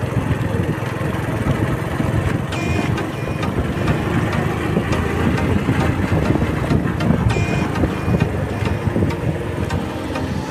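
Motorcycle engine running steadily while riding, with wind and road noise. Two pairs of short high beeps sound about two and a half seconds in and again about seven seconds in.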